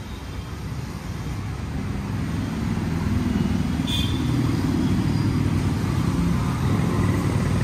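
Low, steady rumble of road traffic that builds over the first few seconds and then holds, with one faint tick about four seconds in.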